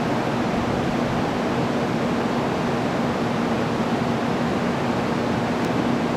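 787-series electric train standing at the platform, its auxiliary equipment running: a steady rushing hiss with a low steady hum.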